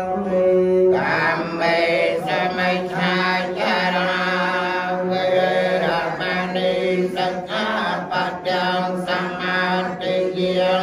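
Buddhist monks chanting together on a steady, held monotone, the voices running on with only brief breaths between phrases.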